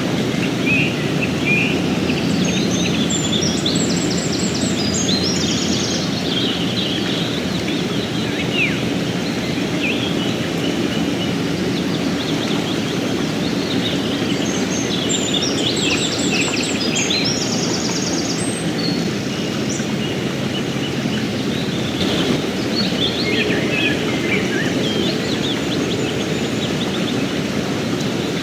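Mountain river rushing steadily. A songbird sings in three spells of quick chirps over it.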